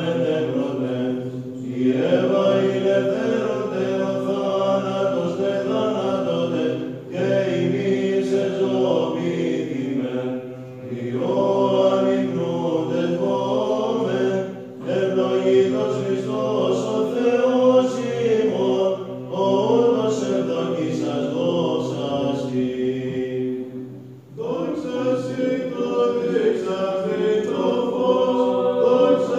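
Byzantine psalmody sung by a choir of men's voices: a melody moving over a steady held drone note (the ison). The melody comes in phrases with short breaths between them.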